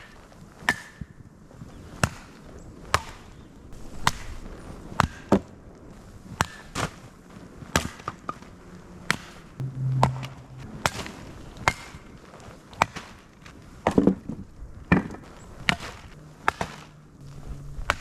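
Firewood being split: a run of sharp chopping strikes, about one a second and unevenly spaced, some with a short ringing crack.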